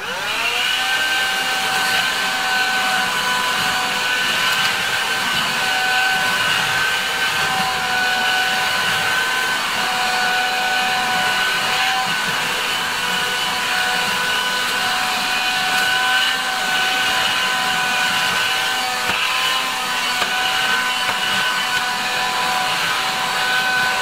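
AEG HX6 7.2 V cordless handheld vacuum cleaner switching on and spinning up with a rising whine in the first second. It then runs steadily with a high whine while being passed back and forth over a carpet floor mat.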